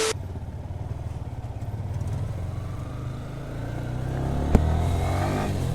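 Motorcycle engine running, its pitch rising in the last couple of seconds as it accelerates, with one sharp click about four and a half seconds in.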